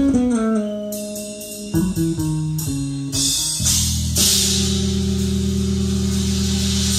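Recorded guitar-band music, with electric guitar, bass and drums, played back through Focal Chorus 726 S floor-standing loudspeakers. A run of falling notes gives way about four seconds in to a long held chord under a cymbal wash.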